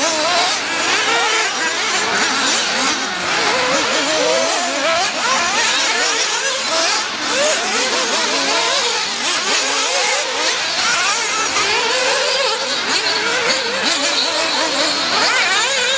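Several 1/8-scale nitro off-road buggies' small two-stroke glow-fuel engines buzzing at high revs over one another, pitch constantly rising and falling as the buggies accelerate and back off.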